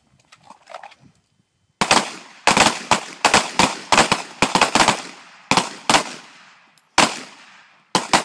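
Handguns fired by several shooters on a line: a rapid, irregular string of about fifteen shots starting about two seconds in, some overlapping, each trailing off in a short echo.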